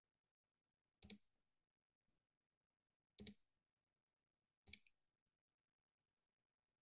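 Three faint computer mouse-button clicks: one about a second in, one about two seconds later and a third a second and a half after that. Each is a quick press-and-release tick.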